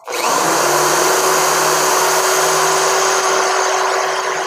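Cheap no-brand electric drill starting up and running at a steady speed with a constant whine, its twist bit boring into a wooden board.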